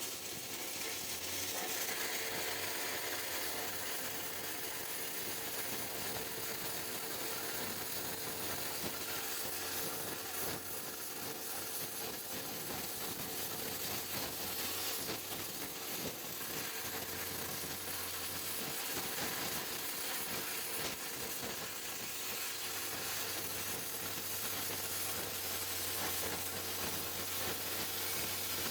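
CNC plasma cutter cutting steel sheet: a steady hiss of the plasma arc with a constant tone, and a low hum that comes and goes several times.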